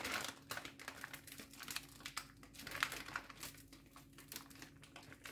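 Plastic packaging of a bag of savoury pastry sheets crinkling faintly in irregular small crackles as it is handled, over a faint steady low hum.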